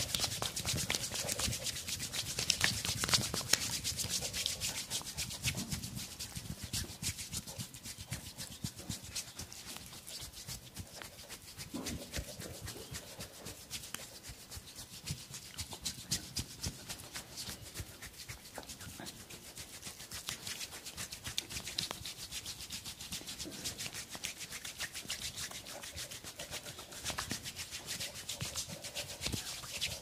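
Hands rubbing and scratching briskly through hair and over the scalp in a head massage: a dense, continuous crackle of quick strokes, louder for the first few seconds and then softer.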